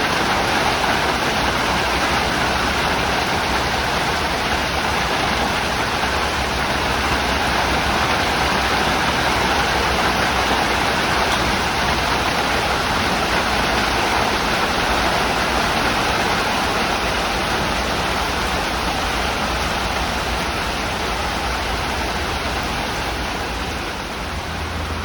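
Heavy rain falling steadily, an even, unbroken rush of water.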